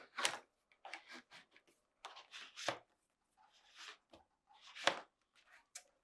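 Refrigerator plastic water line being handled and fed through the hole in the top of the refrigerator housing: faint scattered rustles, scrapes and light clicks of tubing against plastic and metal, with two sharper knocks, one a little under three seconds in and one near five seconds in.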